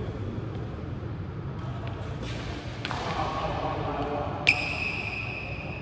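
A sudden hard tap followed by a clear ringing metallic ping that fades over about a second, against faint voices echoing in a large hall.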